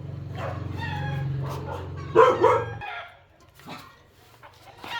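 Chickens clucking, with one loud call just after two seconds in, over a steady low hum that cuts off suddenly a little before three seconds.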